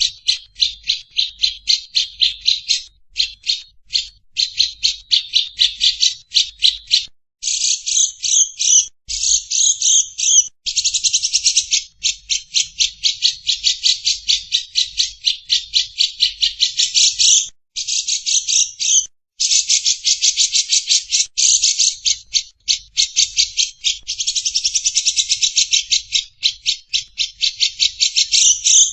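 Rapid, harsh, evenly repeated chattering notes, about seven a second, in long runs broken by brief pauses: a lovebird's long ngekek chatter mixed with the rasping besetan calls of a cucak jenggot (grey-cheeked bulbul), from a bird-training recording.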